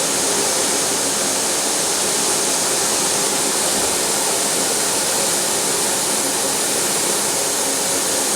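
Philips vacuum cleaner running steadily: a constant loud hiss of rushing air over a faint, even motor hum.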